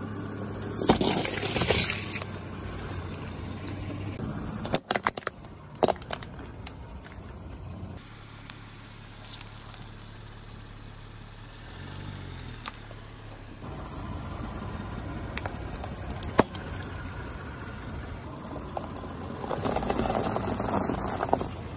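A car tyre rolling slowly over objects on gravelly asphalt, crushing them one after another: a carton of almond milk bursting about a second in, sharp cracks a few seconds later, and a pile of candy-shelled chocolate eggs crackling and crunching under the tyre near the end.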